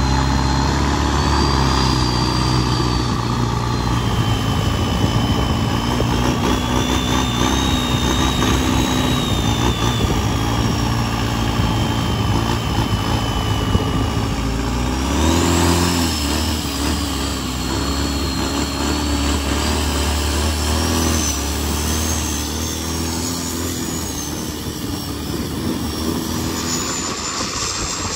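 Isuzu 4J-series turbo diesel driving a longtail racing boat at speed, a loud steady engine drone with a high whine drifting up and down above it. About halfway through the engine's pitch dips briefly and then climbs again.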